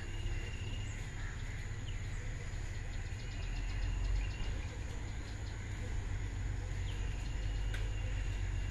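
Birds chirping and calling over a steady low rumble, with a short run of rapid ticks midway.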